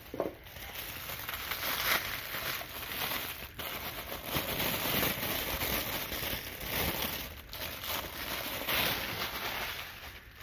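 Crinkly plastic wrapping being handled and pulled off a toy track piece: a continuous rustling crackle that swells and fades.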